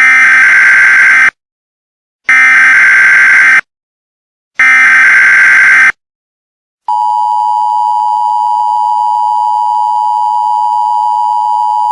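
Emergency Alert System signal. First come three identical bursts of the SAME header, each a harsh warbling data squawk a little over a second long, with a second of silence between them. About seven seconds in, after a short gap, the steady two-tone EAS attention signal starts: a loud, unbroken dual-pitch drone that precedes the spoken alert.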